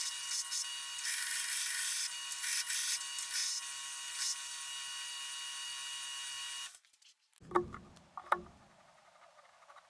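Belt grinder running a green abrasive belt over a small wheel while a steel knife blank is pressed to it, grinding the blank's profile; the grinding hiss rises and falls as the steel goes on and off the belt, then cuts off suddenly. Two light knocks follow.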